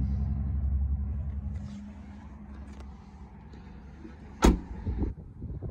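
2021 Dodge Durango's power driver's seat motor running as the memory-seat setting moves the seat, stopping about a second and a half in. A few seconds later a car door shuts with a single thump, followed by a couple of lighter knocks.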